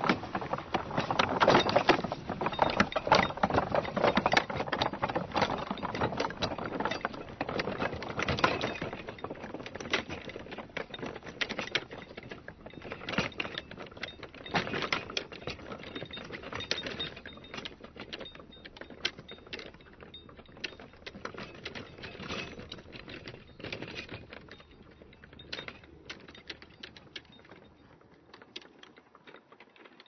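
Horse-drawn cart passing and moving away: a dense clatter of rattles and knocks, loudest in the first ten seconds, then thinning to scattered knocks that fade out near the end.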